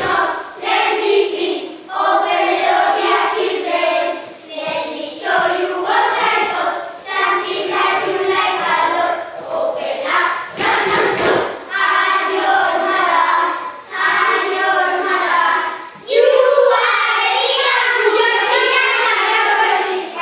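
A group of children singing together in unison, in short phrases with brief pauses between them.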